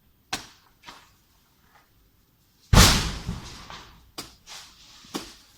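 Cutting down an old coconut tree: a few sharp chopping strikes, then a loud heavy crash about three seconds in as part of the tree comes down and hits the ground, dying away over a second or so, followed by two more sharp strikes.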